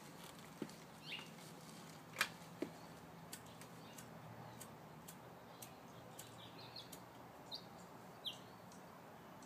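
Quiet background broken by a few scattered small clicks and taps, the loudest about two seconds in, and a few short high bird chirps.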